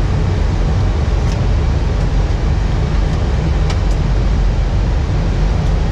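Steady flight-deck noise of an Airbus airliner on final approach: a loud, even rush of airflow and engine noise, heaviest in the low end, with a couple of faint ticks.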